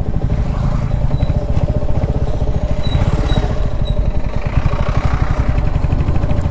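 Motorcycle engine running steadily at riding speed, heard from the bike itself: a fast, even low exhaust beat under road and wind noise.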